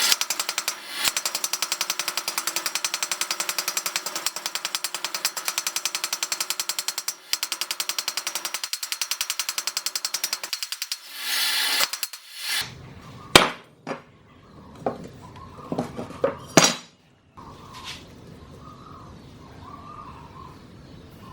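A power tool runs with a rapid, even hammering pulse for about eleven seconds, then stops. Several separate sharp metal knocks follow.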